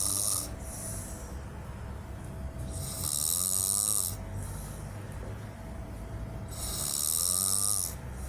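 A person snoring: two long, loud snores about four seconds apart. Each is a hissing breath with a whistle that wavers up and down in pitch, over a low rumble.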